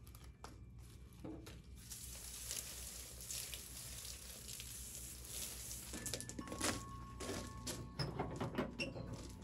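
A steady hiss for a few seconds, then a run of clicks and knocks as the metal door of a small Masterbuilt electric smoker is handled.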